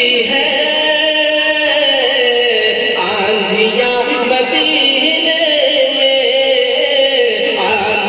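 A naat, an Urdu devotional poem, sung over a microphone and loudspeaker in long held, wavering notes that run without a break.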